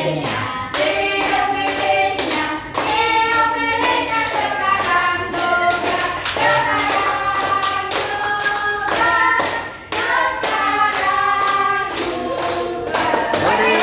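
A small group singing a birthday song together, with hands clapping in time to the beat.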